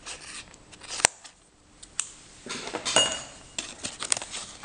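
Scissors snipping open a thin plastic bag, with a sharp snip about a second in, then the bag crinkling and rustling as it is pulled open by hand.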